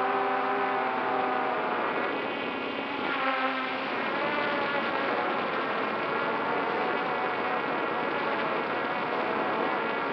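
Multirotor drone's motors and propellers buzzing, heard from the drone's own camera, several tones shifting in pitch as it hovers and drops lower.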